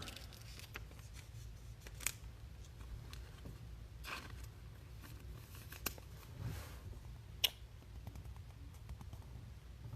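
Faint clicks and light rustling of trading cards being handled, slid and sleeved, over a low steady hum.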